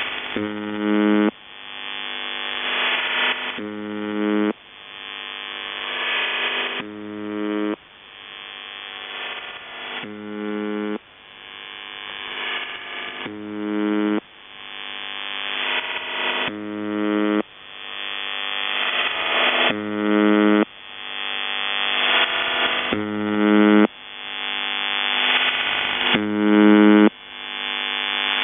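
UVB-76 'The Buzzer' shortwave channel marker on 4625 kHz, heard through a radio receiver: a short harsh buzz of about a second, repeating about every three seconds. After each buzz, the idle channel of a CIS-12 military modem leaks in as a warbling hiss. The hiss swells louder for about two seconds as the receiver's audio compression lifts it between buzzes, then cuts off abruptly as the next buzz starts.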